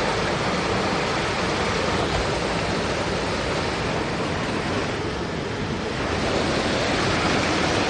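Steady rushing of a forest mountain stream, easing slightly for a moment about five seconds in.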